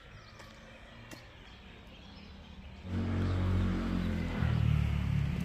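Quiet outdoor background, then about three seconds in a motor vehicle's engine comes in loud and close, running with a low pitched drone that shifts once in pitch.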